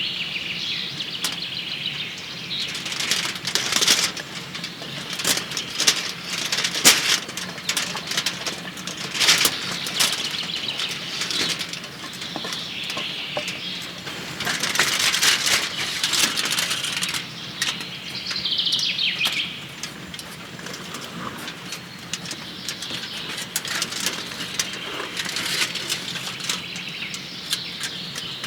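Wood fire crackling with sharp, irregular pops, with a longer patch of rustling about halfway through. Birds chirp briefly near the start and about two-thirds of the way in.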